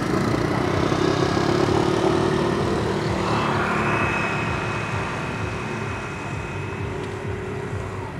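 Steady motor hum with a pitched drone low down, swelling over the first couple of seconds and then slowly fading; a thin high whine joins in midway.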